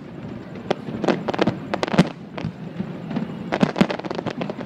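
Aerial fireworks bursting in irregular succession: sharp bangs and pops, with a dense run of them about three and a half seconds in.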